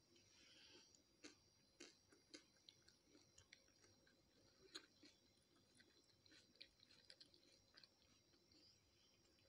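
Faint chewing: soft, irregular mouth clicks and small crunches, with the loudest click about five seconds in, over near silence.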